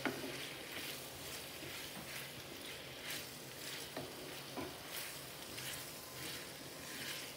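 Wooden spatula stirring and scraping pasta through thick sauce in a frying pan, a soft scrape about once a second over a faint steady sizzle.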